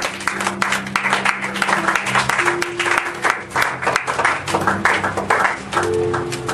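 Congregation clapping in applause, many hands at once, over held instrumental chords that change every second or two.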